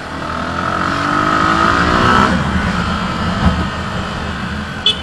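Motorcycle engine revving up as the bike pulls away and accelerates, its pitch rising for about two seconds and then dropping back and running steadier. A short knock about three and a half seconds in, and a few short high beeps at the very end.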